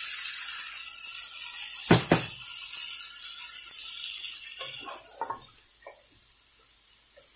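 Mutton, onions and spice powders sizzling in a hot nonstick pan while the masala is fried, with a knock of the wooden spoon about two seconds in. Near the end the sizzle fades to a few stirring scrapes.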